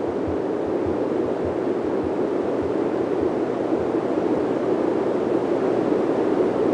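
Steady rush of wind and water as a Baltic 38 DP sailing yacht under sail drives its bow through choppy sea. A low, regular thud, about two a second, fades out in the first couple of seconds.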